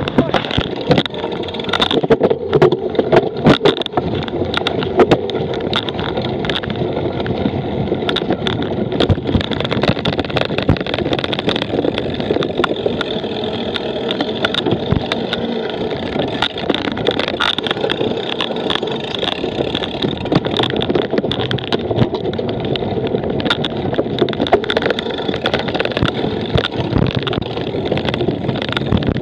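Onboard sound of a cyclocross bike being raced over rough ground: a steady rush of wind on the microphone, with frequent knocks and rattles as the bike goes over bumps.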